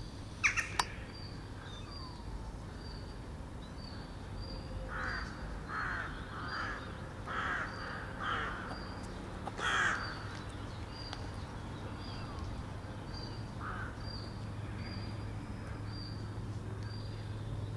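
A crow cawing: a run of about seven harsh caws in quick succession, then one more a few seconds later. A faint high chirp repeats about twice a second over a low steady hum, and two sharp clicks come just after the start.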